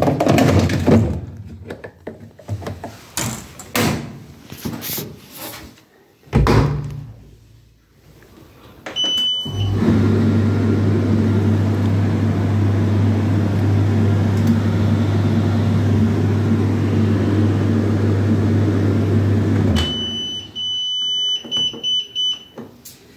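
AVG/Vestel GG10C condenser tumble dryer being worked: knocks and clicks, then a short beep as it starts. The drum motor runs with a steady low hum and a rushing noise for about ten seconds, stops suddenly, and a series of short beeps follows.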